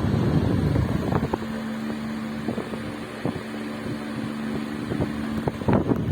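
Arge Twister 50 cm pedestal fan running. Its air stream buffets the microphone for about the first second and again near the end. In between, a steady motor hum with a few light ticks comes through.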